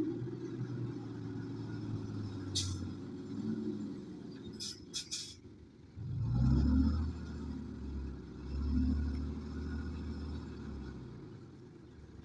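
Heavy diesel engine of earthmoving equipment running and revving up about six seconds in, then easing off. There is a short air hiss about two and a half seconds in and three quick hisses around five seconds in.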